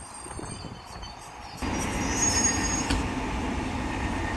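Electric commuter train rolling past: a steady rumble of wheels on rail that gets suddenly louder about a second and a half in, with faint high squealing tones over it.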